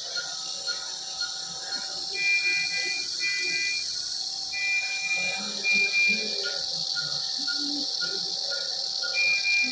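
Electronic beeping: short beeps about twice a second, with longer, higher steady tones that come in stretches of a second or more, over a steady hiss.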